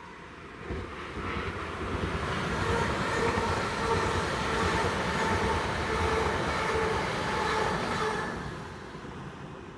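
Class 360 electric multiple unit (Siemens Desiro) passing on the near track: the rush of wheels on rail builds from about a second in, holds loud with a steady whine of several tones, and fades after about eight seconds.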